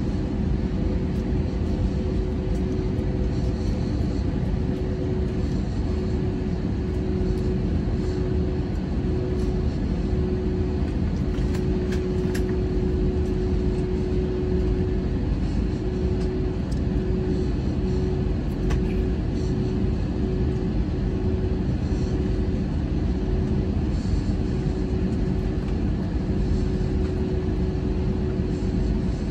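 Steady cabin noise of a jet airliner taxiing: a low engine rumble with a constant whine running through it.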